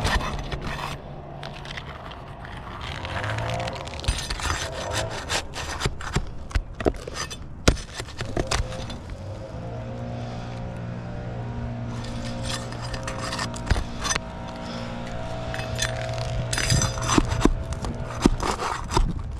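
Hand tools scraping, prying and knocking on asphalt roof shingles in irregular strokes while a wind-damaged shingle is being replaced. A steady low hum runs underneath during the first couple of seconds and again for several seconds in the middle.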